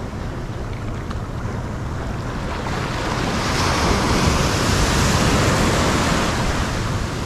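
Ocean surf at the water's edge: a wave breaks and its whitewater rushes in around the angler, swelling from about halfway through and loudest near the end. Wind buffets the microphone throughout.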